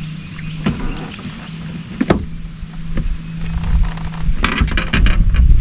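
A small motor on a fishing boat hums steadily and stops about four and a half seconds in. Scattered clicks and knocks come from the rod, reel and a caught fish being handled. Near the end a quick run of rattling clicks comes with a rising rush of wind on the microphone.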